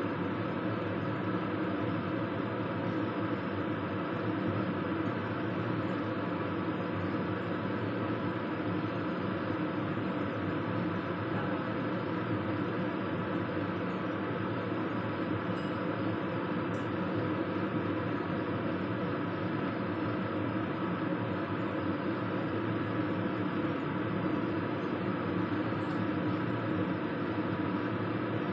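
A steady mechanical hum with a rushing noise, unchanging throughout, with no distinct knocks or clinks.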